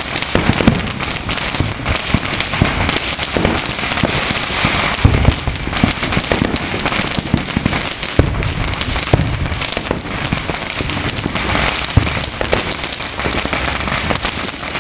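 Continuous barrage of fireworks in a finale: dense popping and crackling over repeated low booms of shells bursting, with one sharper bang about twelve seconds in.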